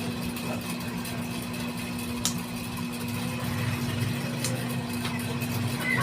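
A machine running with a steady low hum. There is a sharp click about two seconds in and another a little past four seconds.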